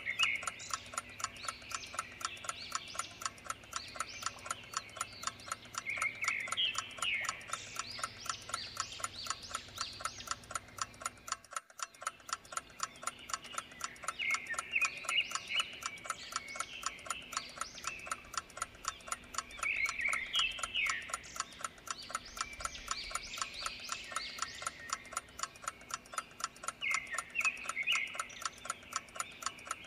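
Clock ticking steadily, about two ticks a second. Over it a short chirping call comes back about every six to seven seconds.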